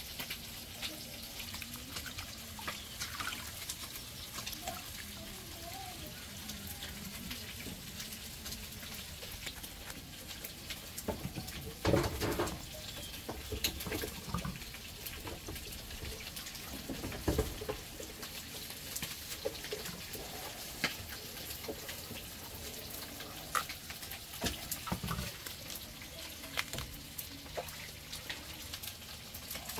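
A pot of beef shank and pork ribs cooking on the fire, a steady bubbling hiss. A few louder knocks come through, the loudest about 12 and 17 seconds in.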